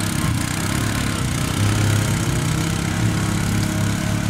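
ATV engine running at low speed under load as it drags a moose carcass through tall grass, its pitch wavering slightly.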